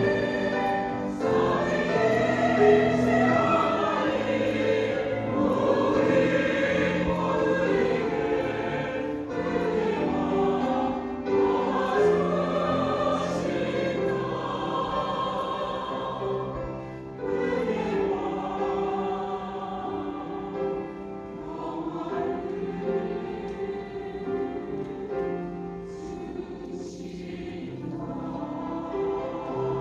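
Church choir singing an anthem in sustained, held chords, growing softer toward the end.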